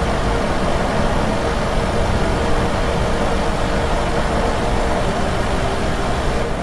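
Mercedes-Benz Tourismo coach driving at speed: a steady rush of tyre and road noise with a low engine hum underneath.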